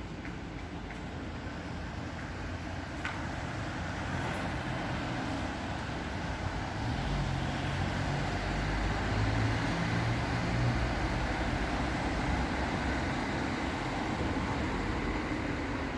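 Road traffic noise: a steady hum of passing vehicles, with one vehicle's low engine rumble swelling from about four seconds in, loudest past the middle, then easing.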